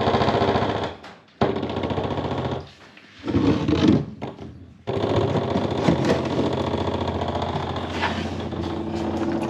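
Small electric pump running in several bursts with a fast rattle, drawing water-contaminated fuel out of the boat's fuel tank. It stops and starts a few times in the first half, then runs on steadily.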